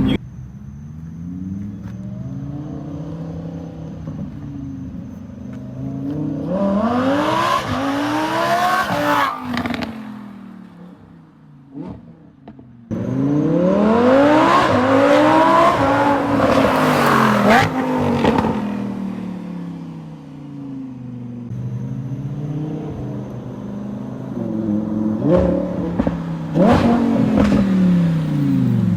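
Lamborghini Huracan Evo's 5.2-litre V10 accelerating hard in repeated pulls, its pitch climbing steeply through the gears with short breaks at the shifts, then falling away as it backs off. About three pulls: the loudest comes in abruptly about halfway through after a brief near-quiet spell, and another builds near the end.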